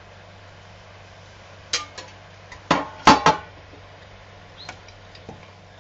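Stainless-steel serving dish clattering as it is set down on a glass cooktop: a few sharp metallic clinks and knocks from about two to three and a half seconds in, then a couple of faint ticks, over a faint steady hum.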